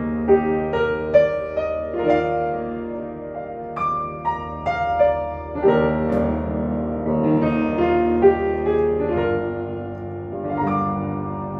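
Hamburg-built Steinway & Sons Model Z upright piano being played: a slow piece of single notes and chords, each struck note ringing on.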